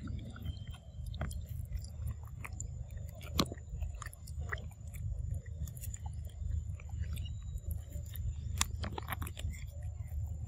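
Close-up mouth sounds of macaques feeding, with a baby macaque sucking juice through a straw: scattered small wet clicks and smacks over a steady low rumble.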